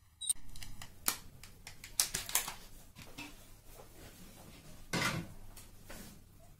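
Handling noise: a series of sharp clicks and knocks, several in the first two and a half seconds and a heavier knock about five seconds in, over a low steady hum.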